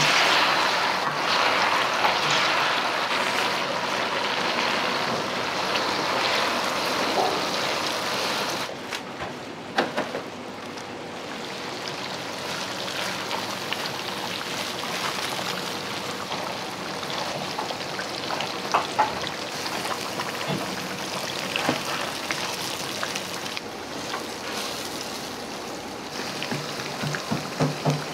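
Hot oil sizzling and bubbling in a wok, stirred with a metal ladle that knocks against the wok now and then. The sizzle is loudest for the first several seconds, then steadies at a lower level once minced meat is frying in the oil.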